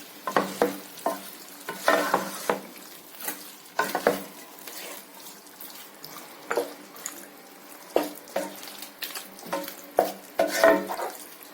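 A cooking spoon stirring chicken and green-chilli masala in a pan, scraping and knocking against the pan at irregular moments, with the food sizzling as it fries.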